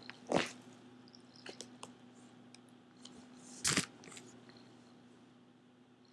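A cat being handled right at a laptop's built-in microphone: soft brushing and scratching of fur, with two short louder bumps, one about half a second in and one near the four-second mark, over a steady low hum.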